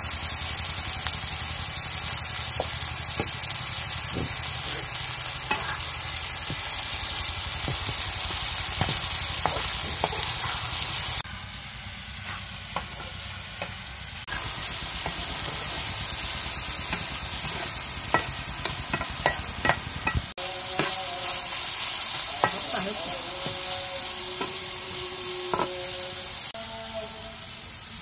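Food sizzling in hot oil in a pan, stirred and scraped with a spatula that gives frequent short clicks against the pan. The sizzle drops quieter for a few seconds about eleven seconds in.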